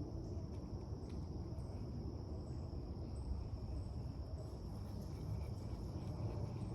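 Insects, crickets or similar, sounding a steady unbroken high-pitched drone over a low, even background rumble.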